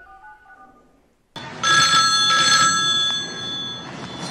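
Phone keypad dialing beeps (DTMF tones) in the first second, then a telephone bell ringing loudly from about a second and a half in. It eases off after about three seconds and starts to ring again near the end.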